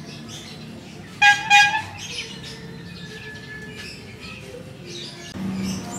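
Two short horn toots in quick succession about a second in, over birds chirping and a steady low street hum.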